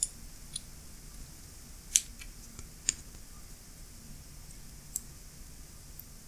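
A handful of light, sharp metallic clicks at irregular intervals, the loudest about two seconds in, as the steel cover plate is seated on the Snap-On F-71-D ratchet head and the head is handled.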